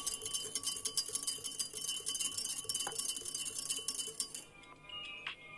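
Wire whisk rapidly clinking against a glass measuring cup as brine for cucumber pickles is whisked, stopping near the end.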